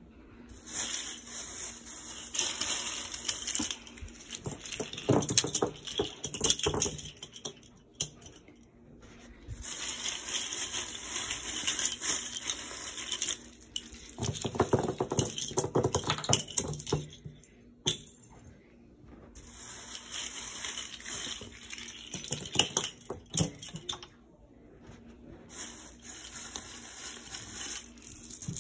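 Rice, coins, plastic bottle caps and buttons on a carpet crunching and clinking as they are trodden on, in several bursts of a few seconds with short pauses between.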